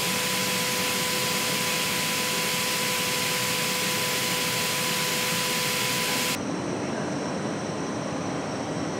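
Painting robots spraying a car body, giving a steady, loud hiss with a faint steady two-note hum under it. About six seconds in it cuts off abruptly to a quieter, duller steady machine hum with faint high whines.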